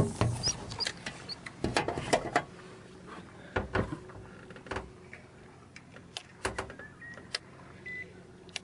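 Scattered light clicks and knocks around a small boat, some coming in quick bunches, over a quiet background, with a few brief high chirps.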